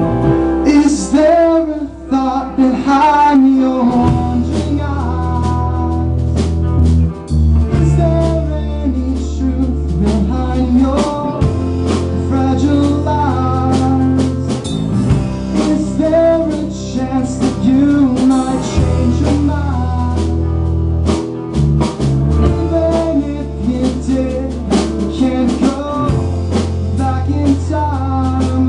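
Live band playing a bluesy rock song on guitar and drum kit, with sustained low bass notes under it.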